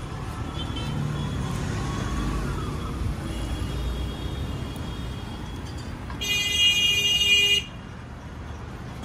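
Road traffic rumbling past on the street. About six seconds in, a vehicle horn sounds one steady blast of about a second and a half, louder than everything else, and cuts off sharply.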